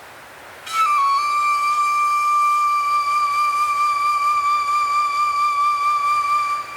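A flute plays one long held note that dips slightly in pitch as it begins and wavers a little, starting about a second in and stopping near the end, over a soft wind-like hiss.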